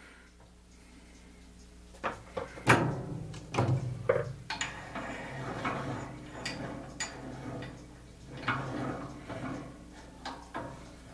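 Irregular metal clanks and clicks as a steel spike is positioned and clamped by hand in the vise of a metal-cutting bandsaw, with the sharpest knock a few seconds in. A low steady hum runs underneath.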